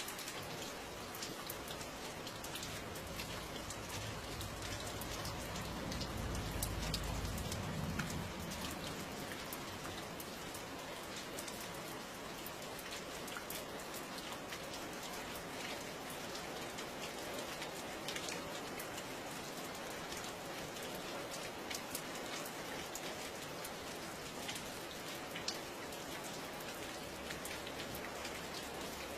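Steady rain with many separate drops ticking through the hiss. A low rumble swells and fades between about four and eight seconds in.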